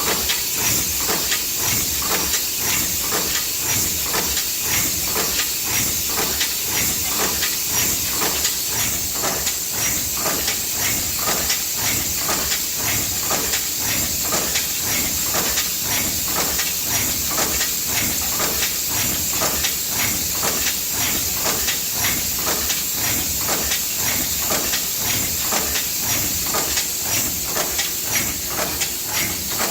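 Five-station cold-forming bolt press (Yeswin YBF19B5S) running: an even, rapid rhythm of forming strokes over a constant high hiss.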